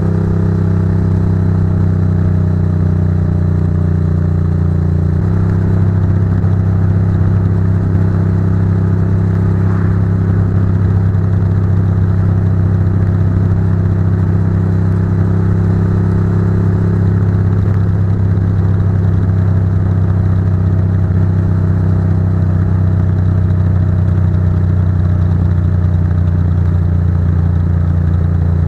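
Ducati GT1000's air-cooled L-twin running steadily through Termignoni exhausts while the bike cruises, heard from just above the exhaust pipes. The engine note shifts to a new pitch about five seconds in.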